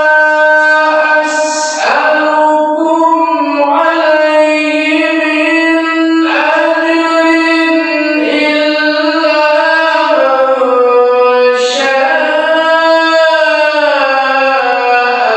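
A qari reciting the Quran in melodic tilawah style: one voice holding long, ornamented notes that bend up and down, with two short breaks for a new phrase, about a second and a half in and again around twelve seconds in.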